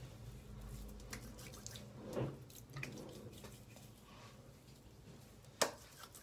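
Faint wet pats and small clicks of soapy, lathered hands rubbing and patting a foaming face mask onto skin, with one sharper click about five and a half seconds in.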